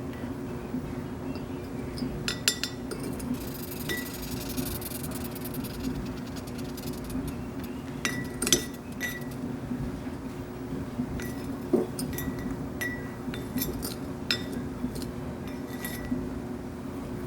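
Female cow killer velvet ant (Dasymutilla occidentalis) stridulating: short squeaky chirps come singly and in small clusters, with sharp clicks among them. The squeaking is the insect's warning call when disturbed.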